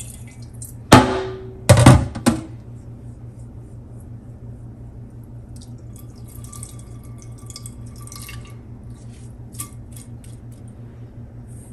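Stainless steel bowl and pan knocking against each other and the steel sink, a few loud clanks with a brief ring about a second in. Then water trickles and drips as soaked little millet is poured and swirled between them, rinsing it so the small stones settle out.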